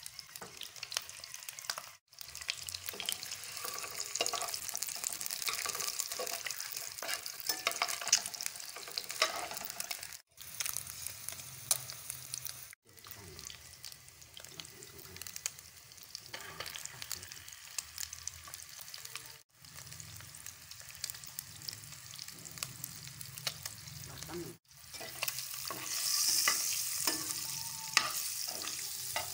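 Whole boiled eggs frying in hot oil in a nonstick pan: the oil sizzles and crackles steadily while the eggs are turned over. The sizzle breaks off for an instant several times and grows louder near the end.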